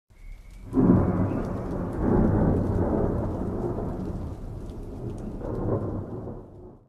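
Thunder sound effect: a loud crack about a second in, rolling on with a couple of swells and fading away near the end, over a faint hiss of rain.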